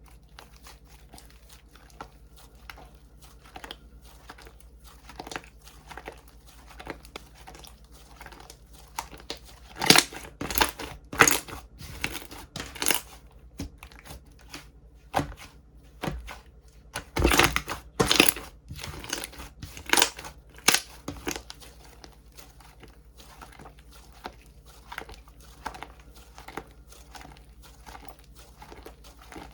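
Slime worked by hand, giving sticky crackling and popping clicks. The clicks come irregularly, with louder flurries about ten seconds in and again around seventeen to twenty-one seconds.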